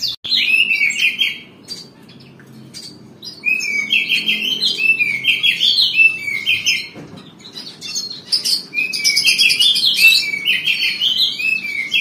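Caged Oriental magpie-robin (kacer), a pied 'blorok' mutation, singing in runs of quick repeated chirping notes, pausing for a second or two about two seconds in. A faint low hum lies underneath.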